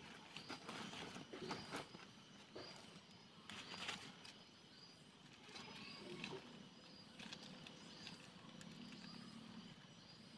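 Quiet forest ambience: a small bird repeats a short high chirp every second or so, while a few rustles and clicks of a dome tent and its gear being handled come and go, loudest about two and four seconds in.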